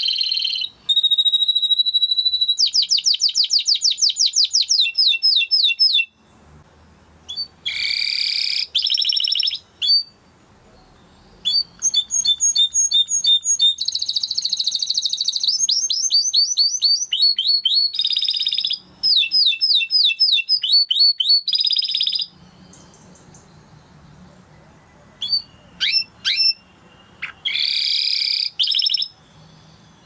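Domestic canary singing: a held whistle, then long rolling trills of rapidly repeated notes in phrases broken by short pauses, and a few short separate chirps near the end.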